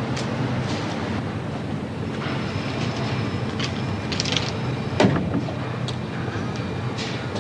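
Steady vehicle rumble, like traffic, with a few short hissing sounds and a sharp knock about five seconds in.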